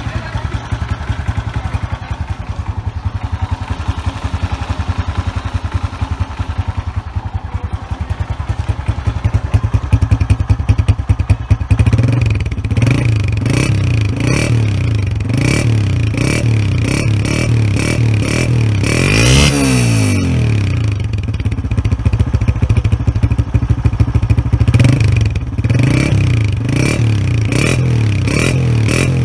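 Honda CG125's single-cylinder four-stroke engine idling through its stock Atlas Honda silencer, then revved again and again from about twelve seconds in, with one higher rev near the middle. The owner says it sounds like a brand-new engine.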